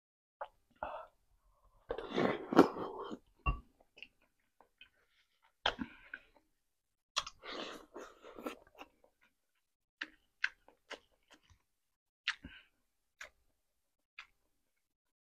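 A person eating chicken soup close to the microphone: scattered wet chewing and lip-smacking clicks, with two louder, longer noisy stretches of slurping about two and seven seconds in.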